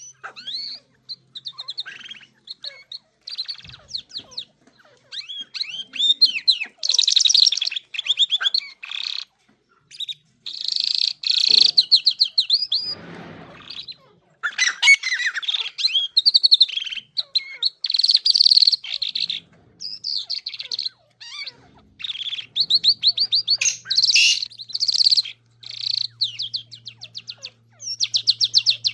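Songbird known in the pet trade as the Irani jal singing a long, varied song of rapid chirps, twitters and fast trills, in bursts separated by short pauses.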